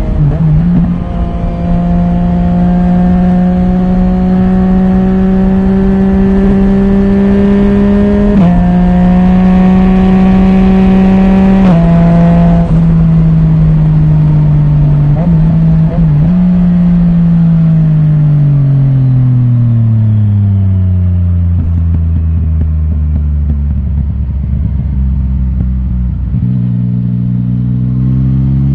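Yamaha Tracer 900 GT's three-cylinder engine through an Akrapovic titanium full exhaust with the dB killer removed, heard onboard while riding. It holds steady revs, then its pitch changes abruptly a couple of times, about eight and twelve seconds in. Later the revs fall away over several seconds, settle low and steady, and climb again near the end.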